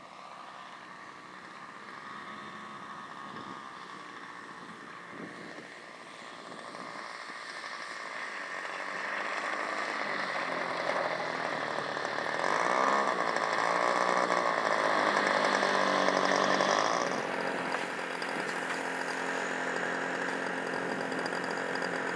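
Small engine of a radio-controlled model aeroplane running at high revs, growing louder and loudest during a takeoff run along the runway, then dropping suddenly and running on more quietly.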